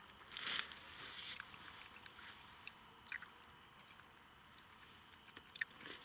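A person biting and chewing juicy mandarin segments close to the microphone: short wet bursts of chewing, the strongest in the first second and a half, then a few fainter ones.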